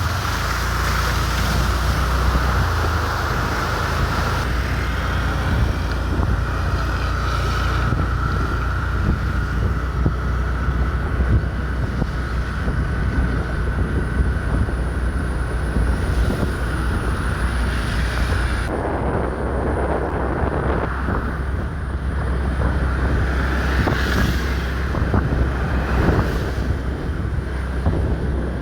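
Steady noisy rumble, heaviest in the low end, with wind buffeting the microphone; the higher hiss thins out about two-thirds of the way through.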